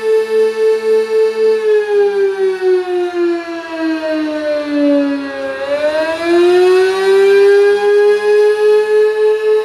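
Outdoor warning siren sounding on test: a steady siren tone that pulses in loudness two to three times a second. About two seconds in, the pitch slides down for several seconds, then climbs back up to the steady tone a little past the middle.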